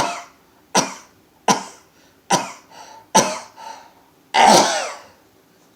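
A man sneezing in a rapid series: six loud sneezes about three-quarters of a second apart, the last one longer and the loudest. A morning sneezing fit of many sneezes in a row.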